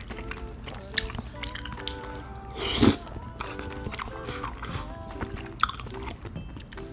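Close-miked eating of tteokbokki: chewing and biting on chewy rice cakes and fish cakes, with small wet mouth clicks and one loud slurp of the spicy sauce off a metal spoon about three seconds in. Light background music of short repeated notes plays throughout.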